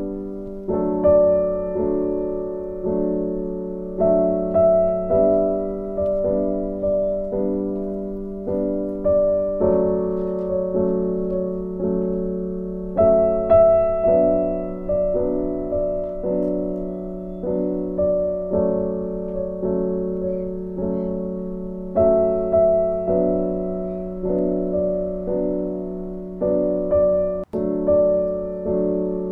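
Background music: a gentle, slow piano piece of chords and melody notes, each struck note fading away. It cuts out for an instant near the end.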